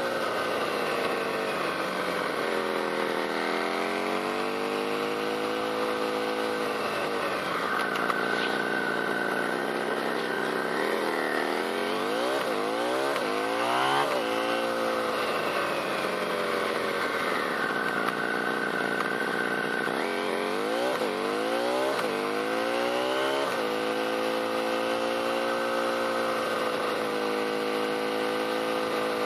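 Motorcycle engine running under way: the note holds steady, dips as the bike slows, then climbs in quick rising runs as it accelerates up through the gears, once around the middle and again about two-thirds through, before settling into a steady cruise.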